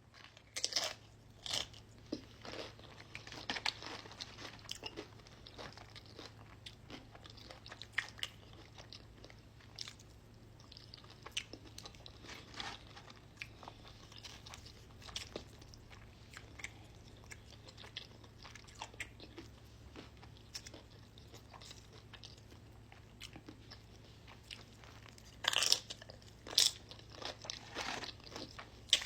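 A person biting and chewing crunchy Spicy Nacho Doritos chips, a run of sharp crunches. The loudest crunches come about a second in and again near the end.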